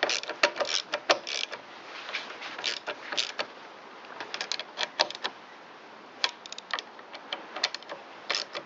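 Irregular clicks and light knocks of hand tools and plastic and metal engine parts being handled during reassembly of a small engine's air filter housing. The clicks are densest in the first couple of seconds, then scattered.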